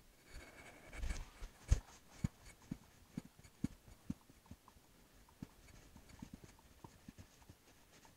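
A cloth wiping marker off a glass lightboard: faint rubbing with a string of short, soft knocks, about two a second, the loudest about two seconds in.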